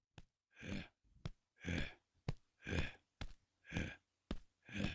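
A cartoon bear's heavy, breathy huffing, about one breath a second, with a short sharp tap between each breath, in time with its plodding walk.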